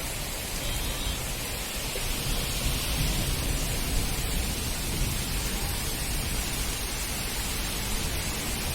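Moderate monsoon rain falling steadily, an even hiss with a low rumble underneath.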